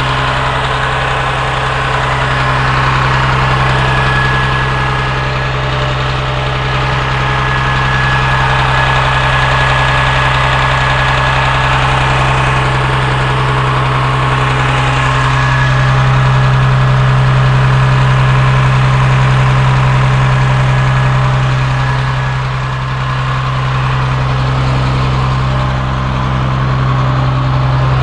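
Caterpillar C7 7.2-litre turbo diesel engine of a rear-engine school bus idling steadily, heard close up at its open engine compartment. It is loud enough to drown out a voice.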